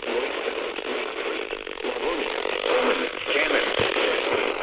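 NOAA Weather Radio broadcast on weak reception: heavy static hiss with an automated text-to-speech voice faintly reading out the place names of a severe thunderstorm warning underneath it.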